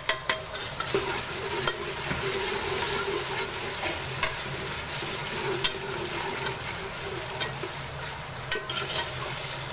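Chopped tomatoes and green chillies sizzling in hot ghee with browned onions in a steel pot, stirred with a metal ladle that clinks against the pot a few times.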